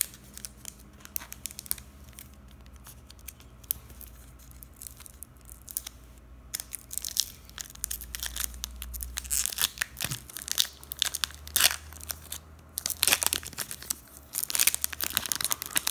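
Foil wrapper of a Pokémon TCG XY booster pack being handled and torn open, crinkling. Only faint, sparse rustles for the first few seconds, then dense crinkling and tearing from about halfway through.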